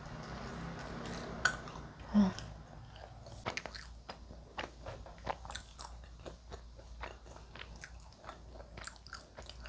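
Close-up chewing of KFC french fries and sweet potato balls picked up by a clip-on microphone: a louder short sound about two seconds in, then a run of small sharp mouth clicks and crunches, several a second.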